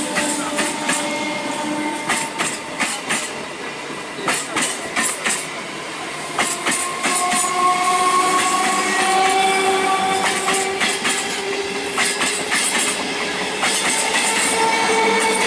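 Electric multiple unit (EMU) local train passing close by at speed, its wheels clattering in quick, uneven clicks over the rail joints. Through the second half a steady tone slowly rises in pitch above the clatter.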